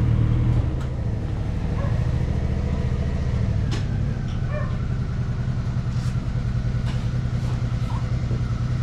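Motorcycle engine idling steadily, a low even note that shifts slightly about half a second in and again a few seconds later.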